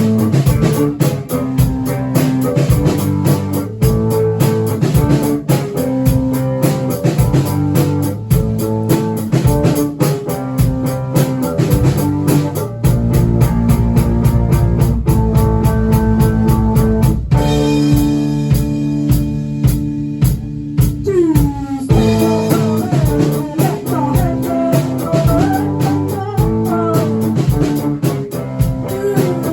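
Rock band playing guitar and drums with a steady beat. About two-thirds of the way through, the drums drop out for a few seconds and a guitar note slides down before the beat comes back in.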